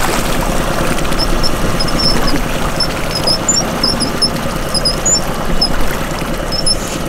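Boat engine running steadily at trolling speed, with water noise around the hull. From about a second in there is a scattered series of short, high squeaks.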